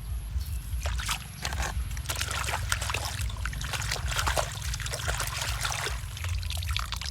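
Water trickling and splashing as a small toy car is washed by hand, with many small clicks and crackles over a steady low hum.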